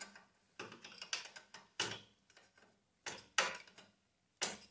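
Steel hand wrenches working the nut and bolt of a garden tractor's hydrostatic transmission control rod: short runs of light metal clicks and clinks, in about four separate spells.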